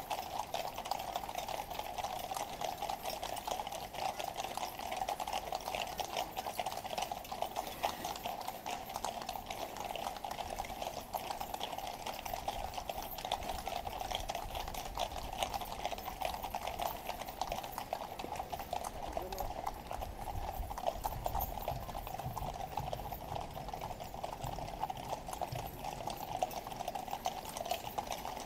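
Shod hooves of a column of Household Cavalry horses clip-clopping on the road at a slower pace, a dense continuous stream of hoofbeats from many horses. A low rumble joins about twenty seconds in.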